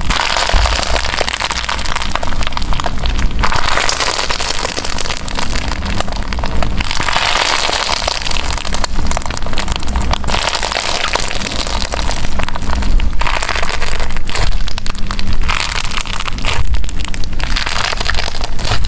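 Jelly cube slime (foam sponge cubes coated in clear slime) squeezed and stretched by hand, giving a dense wet crackling that swells with each squeeze, every two to three seconds.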